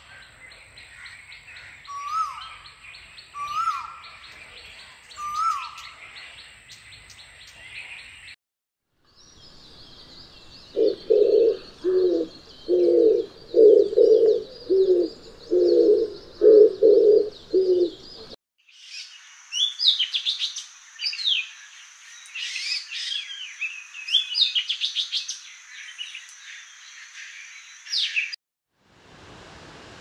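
An Asian koel's rising calls, four of them about a second and a half apart, then an oriental turtle dove's low, rhythmic cooing, then another bird's high, varied twittering song in the last third.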